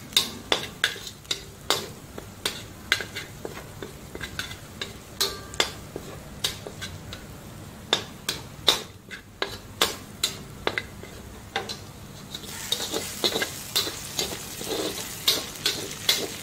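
A metal spatula scraping and tapping against a steel wok while chopped garlic and ginger sizzle in hot coconut oil, in repeated short strokes. About twelve seconds in, the sizzling gets louder as the chicken gizzards are stirred into the oil.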